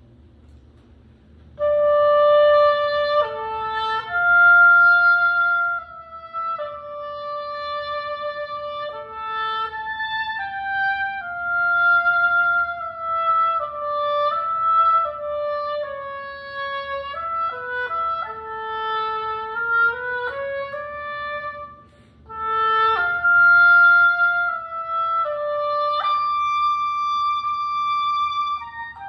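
Solo oboe playing a slow, unaccompanied etude melody, starting about a second and a half in. Its notes are held about a second each, and there is a short breath pause about twenty-two seconds in.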